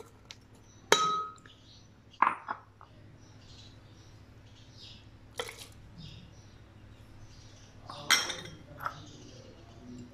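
Glass bowls knocking and clinking against a glass blender jar as chopped onion and tomato are tipped in: about five sharp knocks, the first about a second in with a short ringing clink.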